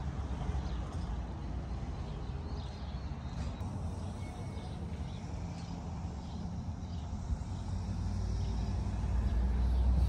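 Wind buffeting the microphone as a low, uneven rumble that swells near the end.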